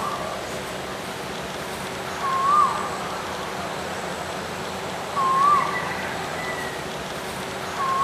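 An animal's short call that swoops up and then drops, repeated about every three seconds over a steady hiss.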